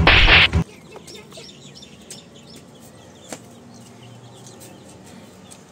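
A loud burst of harsh noise cuts off about half a second in, leaving faint, scattered peeping of baby chicks with a single click a few seconds in.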